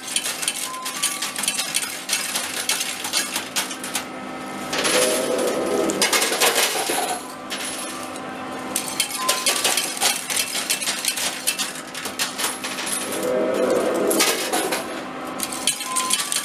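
Coin pusher arcade machine clinking with coins: coins dropping onto the coin-covered metal shelves and knocking against one another in a dense, continuous metallic clatter over a steady machine hum. The clatter gets louder twice, about five seconds in and again near thirteen seconds.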